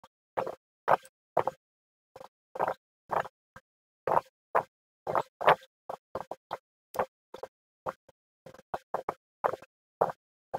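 Computer mouse being clicked over and over in quick, irregular succession, about two to three short clicks a second.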